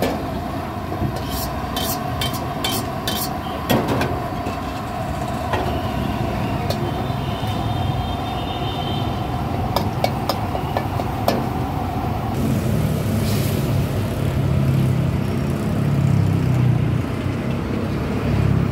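Street ambience: motor traffic running, with background voices and scattered sharp clinks, and a heavier low rumble in the second half.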